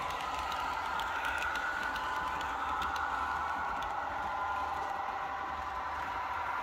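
Model railway coaches rolling past on the layout's track: a steady rolling rattle with small ticks from the wheels, easing a little as the train draws away.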